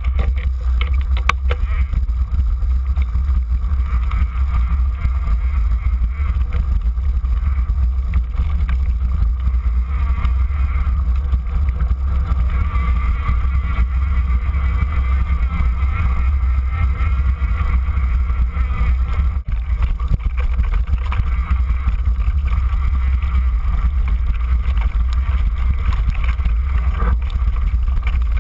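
Mountain bike rolling fast along a dirt trail: a steady, loud low rumble of wind on the microphone, with the tyres running over the dirt and small rattles from the bike over the bumps.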